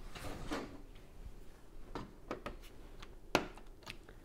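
Lego pieces being handled and fitted: a brief soft rustle near the start, then several light plastic clicks and taps over the last two seconds, the loudest a little over three seconds in.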